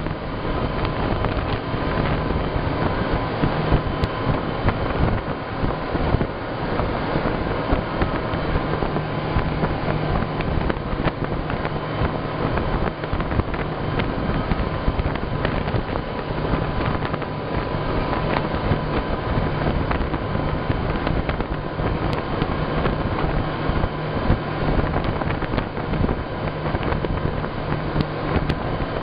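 Motor of a rigid inflatable boat running steadily under way, with wind rushing over the microphone.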